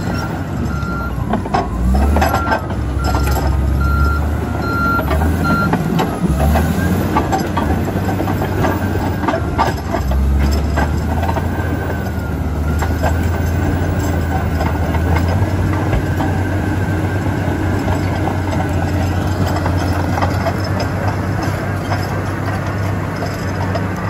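Komatsu D85EX crawler dozer working on rocky ground: its diesel engine runs steadily under a clatter of steel tracks and knocking rock. A reversing alarm beeps at an even pace for about the first six seconds, then stops.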